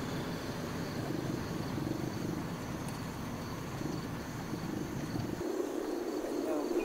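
A car driving along a road: a steady low rumble of engine and tyres, with a steady high chirring of insects over it. The low rumble cuts off suddenly near the end.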